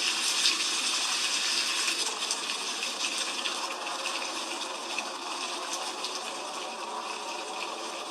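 Heavy rain falling steadily: an even hiss dotted with many small, sharp drop ticks.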